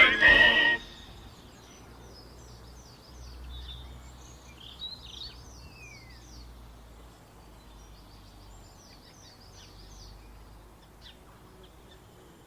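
A whistled music tune cuts off under a second in, leaving faint outdoor ambience with birds chirping repeatedly.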